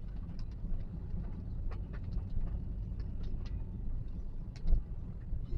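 Steady low rumble of a Toyota Calya on the move, heard from inside the cabin, with scattered light ticks and one brief louder swell near the end.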